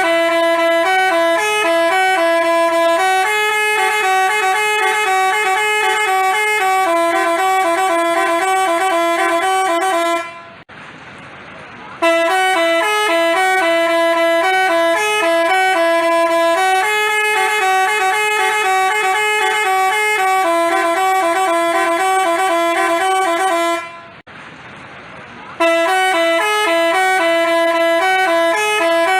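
Telolet basuri bus horn playing a tune of stepped, sustained notes. The same phrase repeats, broken twice by a short pause, about ten seconds in and again near twenty-four seconds.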